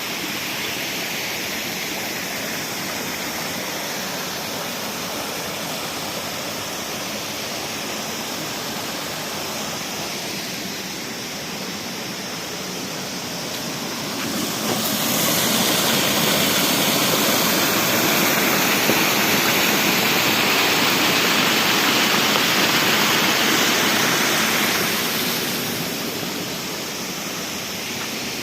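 Rushing water of a mountain stream or river, a steady noise that grows louder for about ten seconds from roughly halfway in, then eases back.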